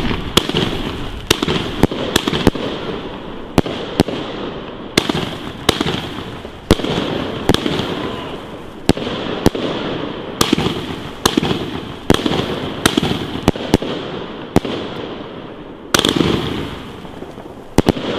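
Funke Blaublink Brokat firework battery firing its 30 mm shots, about two a second, each a sharp report with a steady hiss of the bursts in between. The loudest bang comes right at the start, and there is a short pause about three-quarters of the way through.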